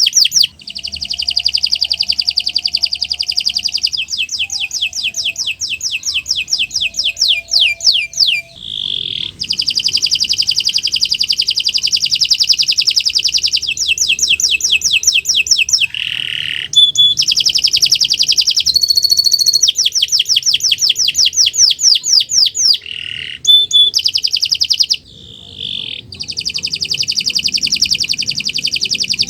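Domestic canary singing a long, loud song of rapid trills, switching from one rolled phrase to the next every few seconds, with only brief breaks between phrases.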